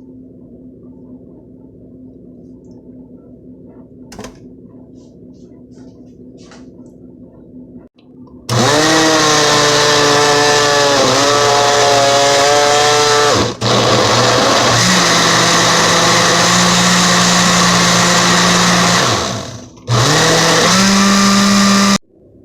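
Countertop blender running in three long runs, the first two five or six seconds each and the last about two, with short breaks between. The motor's pitch dips and recovers as it churns its contents.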